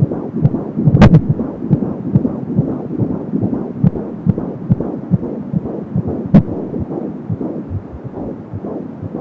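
Fetal heartbeat at 17 weeks of pregnancy through an Angelsounds handheld fetal Doppler: a fast, even run of whooshing thumps at about 170 beats a minute. The pulsing swish in it is, by the uploader's account, the umbilical cord. Two sharp knocks cut in, about a second in and past six seconds.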